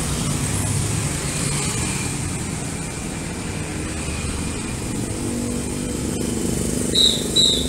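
Road traffic passing close by: motorcycle and car engines with tyre noise. Near the end, two short, shrill whistle blasts come from a traffic police officer signalling vehicles to stop.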